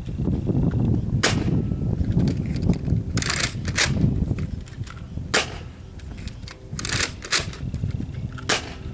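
Nerf Rival Apollo blaster being cocked and fired: a string of sharp plastic clacks and snaps, a second or two apart, some in quick pairs. Wind rumbles on the microphone during the first half.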